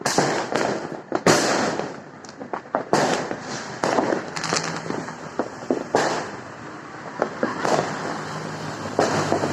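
Many fireworks going off at once: a continuous barrage of sharp bangs and booms at irregular intervals, several of them loud, over a steady crackle.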